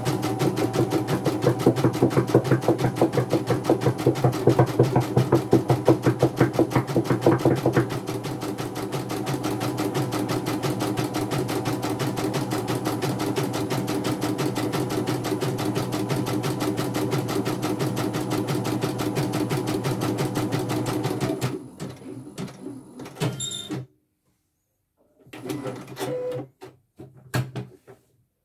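CNY portable embroidery machine stitching out a test design, its needle running at a fast, even rate, louder and more pulsing for a few seconds early in the run, running smoothly with no grinding. It stops abruptly about three-quarters of the way through, followed by a few short knocks and clatters as the hoop is handled.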